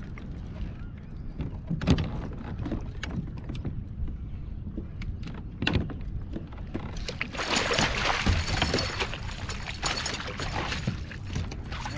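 A pike thrashing in a landing net beside a kayak, splashing the water for several seconds from a little past halfway. Earlier there are a few sharp knocks, over a steady low rumble.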